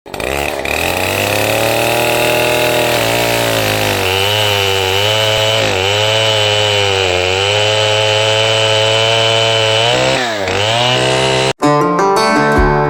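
105cc two-stroke chainsaw running hard, its engine pitch dipping several times and sagging most deeply about ten seconds in. The saw sound cuts off abruptly near the end, and acoustic guitar music takes over.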